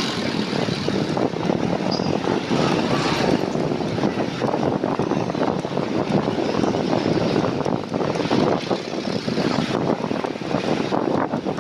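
Steady rush of wind on the microphone of a bicycle-mounted camera while riding, mixed with the noise of road traffic.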